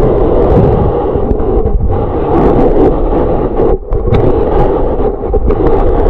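Water sloshing and rushing around a camera held underwater: a loud, muffled churning noise that dips briefly about two and four seconds in.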